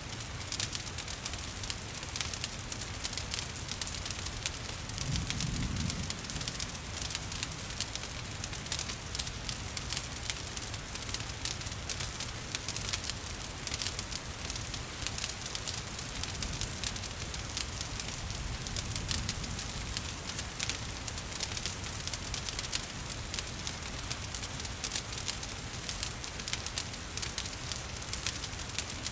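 Wood fire crackling with many small pops over a steady hiss of falling rain. A brief low rumble comes about five seconds in, with a fainter one later.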